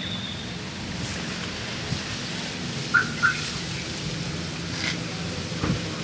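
Steady outdoor background noise with two quick, high chirps in a row about three seconds in.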